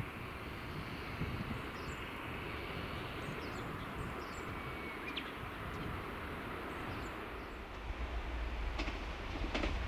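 Tobu Railway 50090 series electric train approaching on the line, a steady rumble that swells in the last couple of seconds. Sharp wheel clicks over the rail joints start near the end.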